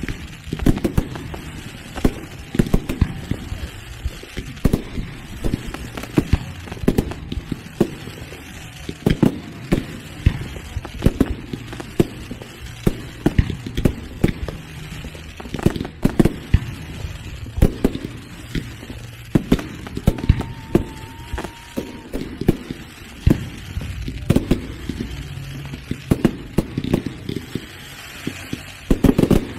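A fireworks display: shells bursting in quick, irregular succession, several bangs a second, with a brief whistling tone about two-thirds through and a loud cluster of bangs near the end.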